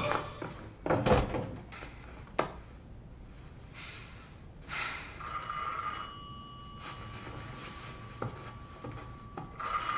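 An old desk telephone's bell ringing: one ring starts about five seconds in and lasts under two seconds, and a second begins near the end. Before it, a door shuts with a thud and a sharp click.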